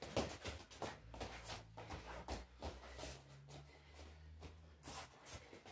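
Wrestling shoes scuffing and padding on a foam wrestling mat, with short irregular slaps and knocks as two wrestlers circle and hand-fight.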